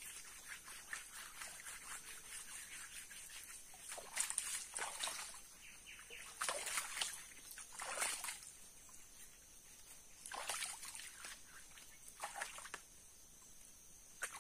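Hands splashing and sloshing in shallow river water at a muddy bank, in about half a dozen separate bursts. The loudest come about six to eight seconds in.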